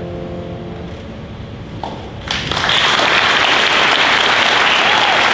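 The closing chord of a choir and piano fades away. A little over two seconds in, audience applause breaks out and keeps going steadily.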